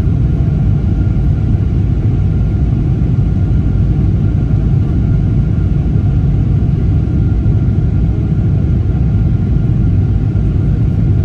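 Steady cabin rumble of a Boeing 777-300ER airliner in flight, with a faint thin high tone riding over it.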